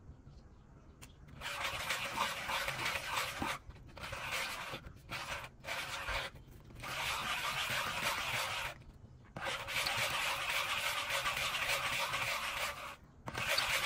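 Thanakha bark being ground against a wet stone slab: a gritty, wet rubbing scrape. It comes in several spells of one to three seconds with brief pauses between them, after a quiet first second.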